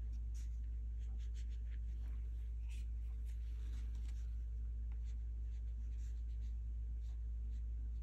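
Watercolour brush strokes on paper: faint, irregular scratchy swishes and light ticks, over a steady low hum.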